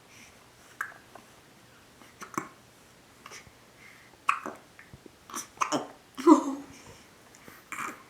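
A baby hiccupping: about seven short, sharp hiccups a second or two apart, the loudest and longest about six seconds in.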